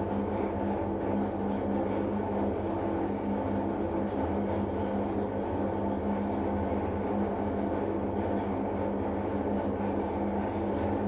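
Gorenje SensoCare W7723 washing machine's drain pump running during the first drain, a steady hum. The pump has minor problems that make it sound strange.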